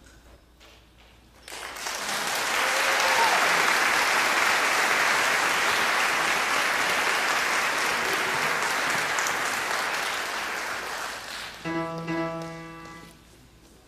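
Audience applauding, starting about a second and a half in and fading out near the end. A couple of short held musical notes follow right after.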